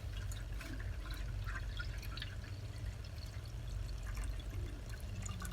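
Water pouring from a bottle into an ultrasonic humidifier's water tank, a steady pour with small splashes.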